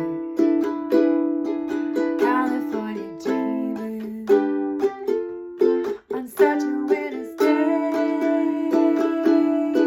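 Ukulele strumming chords in a steady rhythm, with a short break about six seconds in.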